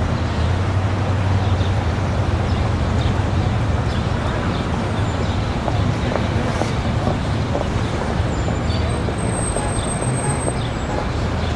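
Big-city street ambience: a steady wash of traffic with the low rumble of engines passing, and indistinct voices of people around.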